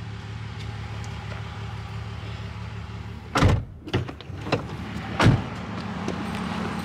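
Steady low hum inside a parked car, then a run of clunks and thumps starting about three and a half seconds in as the car door is unlatched and pushed open.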